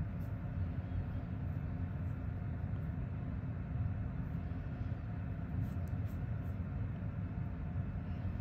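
A steady low motor-like hum, even in level throughout, with a few faint short clicks about five to six seconds in.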